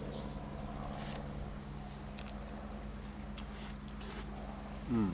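Quiet background of a steady high-pitched whine over a low hum, with a few faint ticks. Near the end comes a person's short, falling "mmm".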